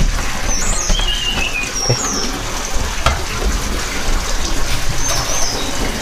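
Oriental magpie-robins giving a few short, high chirps and whistled notes, spaced out, over a steady background hiss.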